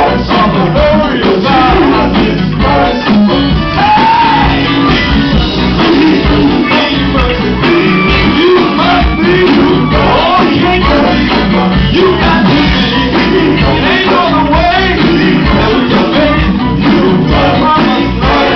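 Live gospel group singing with a full band: male voices over electric guitars, a drum kit keeping a steady beat, and keyboard.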